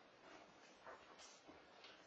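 Near silence with a few faint soft scuffs as a Samoyed puppy moves about dragging a pillow across a rug.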